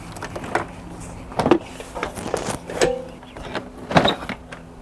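Several separate knocks and clicks of things being handled, over a low steady hum.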